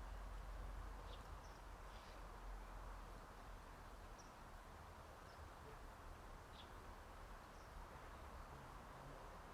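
Near silence: a steady low hum and faint hiss, with a few faint, short high chirps scattered through it.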